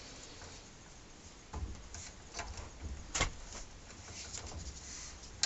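Scattered metallic clicks and clacks of a long-handled socket wrench and socket being worked on a large nut that was heated with a torch to soften its red thread-locker, with the sharpest clack about three seconds in.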